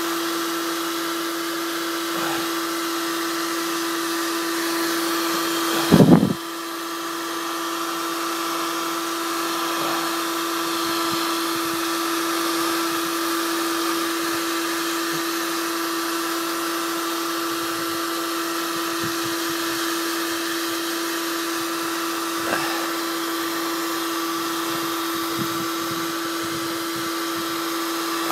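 Black & Decker KX1600 1400 W heat gun running steadily, its fan blowing with a steady hum and hiss. One brief loud thump about six seconds in.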